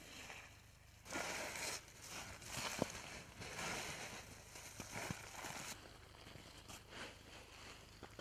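Dried tomato halves rustling and crackling as they are scooped by gloved hands into a plastic mesh sack, in irregular bursts with a few sharp clicks, fading to faint noise after about six seconds.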